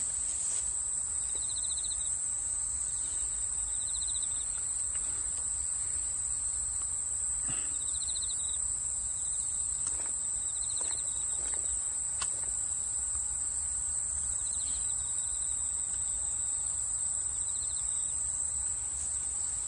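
Steady high-pitched insect chorus with a shorter pulsed call repeating every few seconds, and a few faint clicks.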